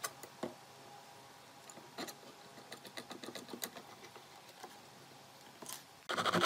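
Quick-release bar clamp ratcheting as its trigger is squeezed to close the jaws on the wooden box, heard as faint, scattered clicks. Just before the end, loud rapid knocking on the wood starts.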